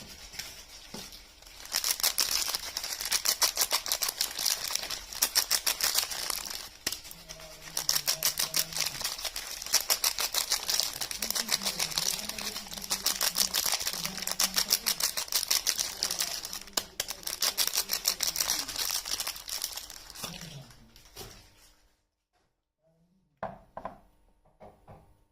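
Rapid, dense crinkling and tearing of a soap bar's wrapper as it is unwrapped. It runs for about twenty seconds, stops near the end, and is followed by a few light taps.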